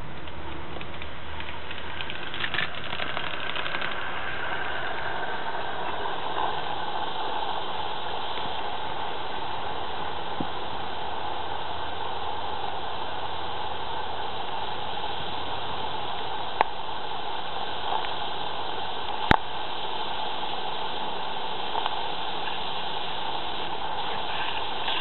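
Roundhouse 'Billy' live-steam garden-railway locomotive standing with a steady hiss. Two sharp clicks come in the last third.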